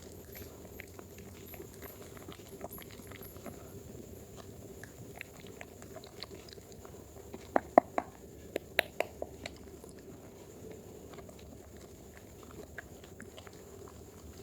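Wet soap lather worked between hands: sticky squelching and small clicks, with a run of louder sharp wet clicks about halfway through.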